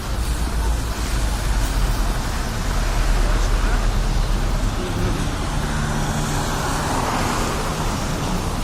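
Street traffic noise, with wind buffeting the microphone in a steady low rumble. A vehicle seems to swell past between about six and eight seconds in.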